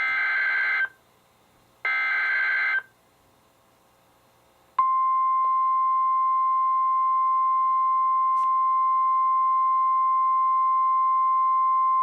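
Two harsh, buzzy Emergency Alert System SAME data bursts from NOAA Weather Radio, about a second each. After a pause of about two seconds, the steady 1050 Hz weather-radio warning alarm tone starts almost five seconds in and holds unbroken, the signal that a warning message follows.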